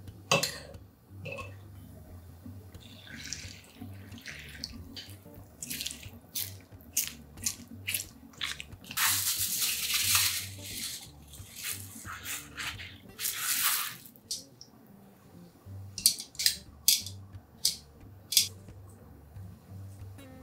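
Kitchen food-prep sounds: a metal spoon clinking in a glass bowl of sauce, then raw beef liver handled wet and pulled out of rustling plastic wrapping, with two longer stretches of crinkling. Near the end comes a run of about six sharp knocks.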